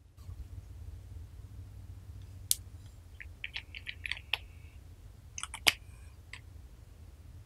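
Small bottle of glitter sprinkles handled and opened by hand: a single click, then a quick run of small ticks and clicks as the cap comes off, then a couple of sharper clicks.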